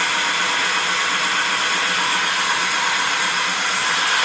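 Mazda FD RX-7's 13B-REW twin-rotor engine running after a start, a steady loud hiss over a fast, even low pulsing. The car has a fault that cuts ignition and fuel shortly after it starts.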